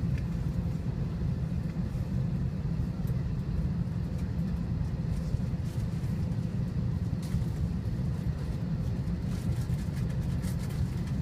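Airliner cabin noise: a steady low rumble, with a few faint ticks near the end.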